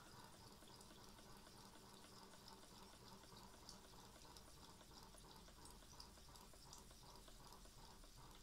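Very faint hissing and bubbling from a small live-steam boiler and model V-twin steam engine, with a few scattered light ticks.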